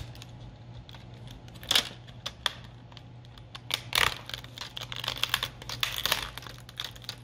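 Plastic screen bezel of an HP 17z laptop being pried loose with a plastic pry tool: irregular clicks and snaps as it comes away from its adhesive, sharpest about two seconds in and around four seconds, with a quick run of clicks near six seconds. A low steady hum underneath.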